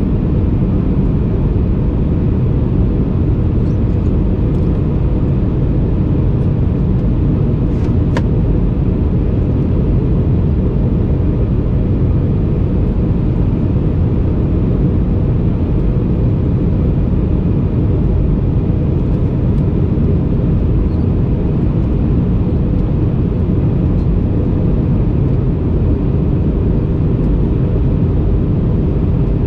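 Steady in-flight noise of an Airbus A319-100 heard from inside the aircraft: a loud, even rush of airflow and engine noise with a low drone and faint steady tones above it, unchanging throughout.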